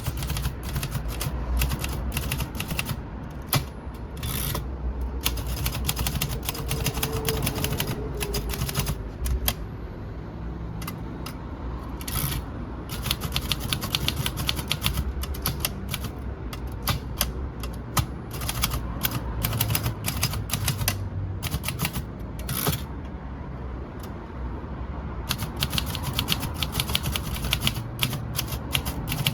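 Remington Rand Deluxe Model 5 manual typewriter, an all-metal machine from about 1947, being typed on: rapid runs of type bars striking the platen, broken by short pauses and a few heavier strokes.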